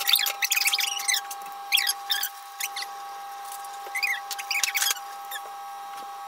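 Lemon halves being squeezed by hand: short, squeaky, wet squelches of rind and pulp, coming in irregular clusters. A steady hum runs underneath.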